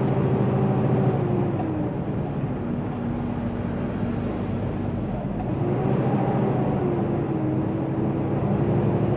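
Semi truck's diesel engine running steadily while driving. Its note drops a couple of seconds in, then climbs again about six seconds in, as the truck eases off and then pulls again.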